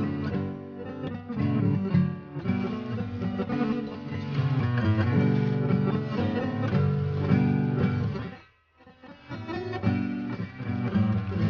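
Background music led by guitar, briefly dropping out about three-quarters of the way through.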